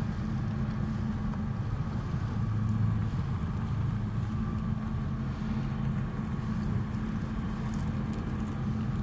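Engine of a 150 kW generator set running steadily under load during a load test, a constant low drone.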